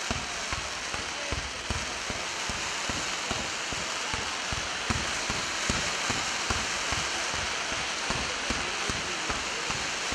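Low-level fireworks barrage of red comets fired in quick succession: a dense, continuous crackle of many small pops over a hiss, with no single big shell burst.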